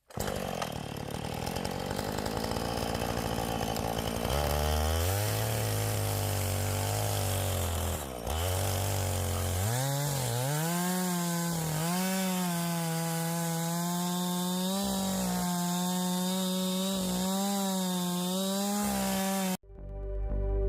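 Two-stroke chainsaw running at high revs while ripping a pine log lengthwise into boards. Its pitch dips and recovers as the chain takes and loses load, then it cuts off suddenly near the end.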